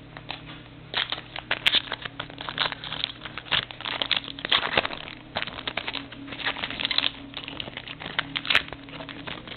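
Foil trading-card pack wrapper crinkling as it is worked and torn open by hand: a dense run of crackles starting about a second in.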